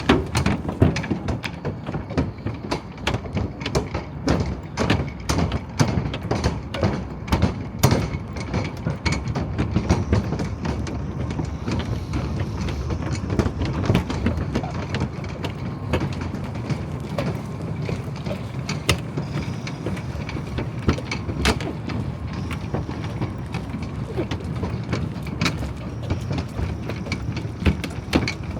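City ambience: a steady low rumble with many irregular clicks and knocks over it, thickest in the first several seconds.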